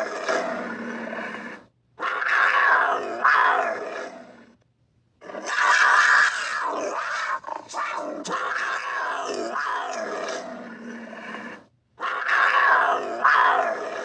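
Florida panther calling: four harsh, rasping calls with falling pitch, each breaking off abruptly. Between them are brief gaps of dead silence. The longest call starts about five seconds in and lasts some six seconds.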